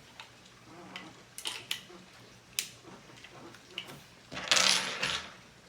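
Small metallic clicks and ticks of a Heritage Rough Rider single-action revolver being handled as its cylinder is swapped, with a louder half-second rush of noise about four and a half seconds in.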